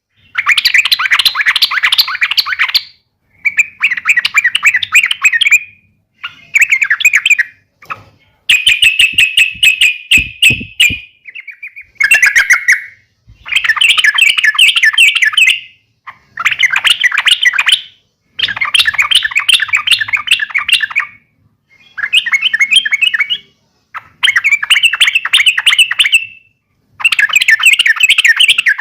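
Yellow-vented bulbul (trucuk) giving fast, chattering call phrases in repeated bursts of two to three seconds with short pauses between them. These are the agitated fighting calls used to provoke caged trucuks into answering.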